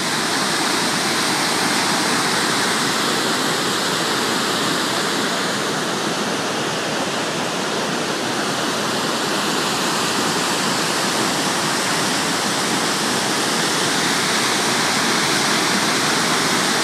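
Great Falls of the Passaic River in heavy flow: a steady, loud rushing of water plunging into the rocky gorge, a little softer for a few seconds about halfway through.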